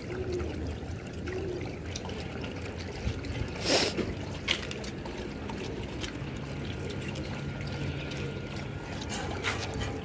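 Several dogs eating and lapping from steel bowls: wet slurping and chewing with many small clicks, and a louder knock just before four seconds in.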